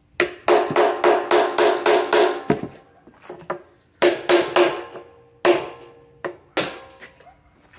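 Hammer blows on a steel bike-peg driver set against the steel hoop of an oak barrel, driving the hoop along the staves. Each blow rings with a metallic tone: a quick run of about four blows a second, then a pause and a few shorter groups of blows.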